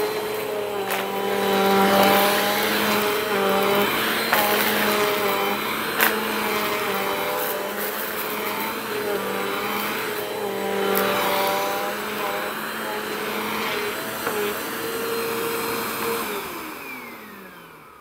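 A Bissell compact bagless upright vacuum runs on carpet with a steady motor whine, and crunchy debris clicks and crackles as it is sucked up. About sixteen seconds in, the motor is switched off and winds down with a falling whine.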